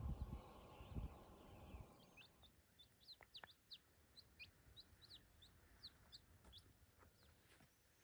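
Wind buffeting the microphone for the first two seconds, then many faint, short, high chirps, each note falling quickly in pitch, scattered irregularly across the rest.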